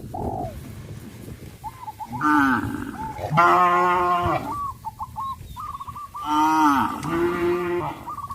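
Cattle mooing: several long, deep calls, the loudest starting about three seconds in and lasting about a second, with fainter short higher-pitched calls in between.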